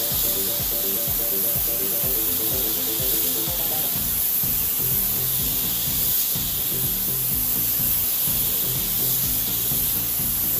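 Compressed-air spray gun hissing steadily as it sprays paint onto a car hood, over music with a steady beat.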